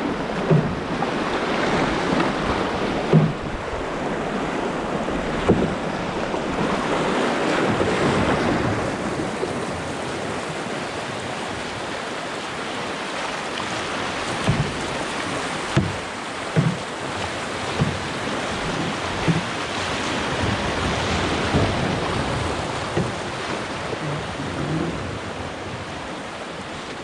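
Rushing, churning whitewater of class II rapids around an open canoe, with wind on the microphone. Short low knocks come now and then, more often in the second half.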